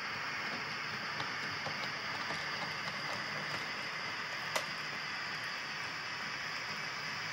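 00-scale model trains running on a layout: a steady hiss with scattered light clicks, one sharper click a bit over halfway through.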